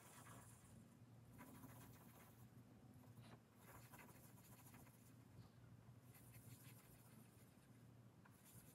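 Faint pencil scratching on paper as small dots are drawn one after another, in short spells. A low steady hum lies underneath.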